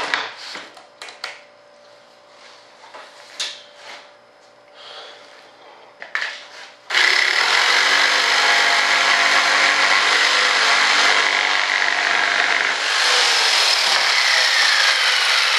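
Corded jigsaw cutting a white-faced board along a pencil line. The saw stops at the start, leaving a few seconds of knocks and handling clicks, then starts again about seven seconds in and cuts steadily, with a brief dip near the end.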